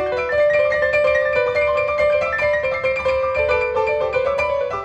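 Piano playing a fast, dense run of notes in the middle-upper register, the notes ringing over one another.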